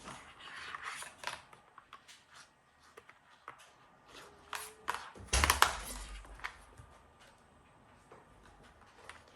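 Scattered clicks and knocks of a laptop hard disk being handled and fitted into a USB 3 external drive enclosure, with a louder knock about five seconds in.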